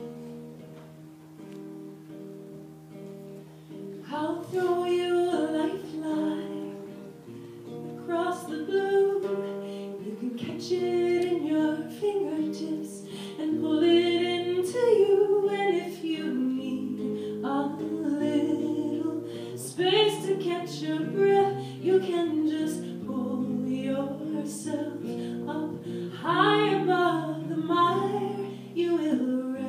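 Song played on acoustic guitar with a voice singing: a few seconds of guitar alone, then the vocal comes in about four seconds in and carries on over the guitar.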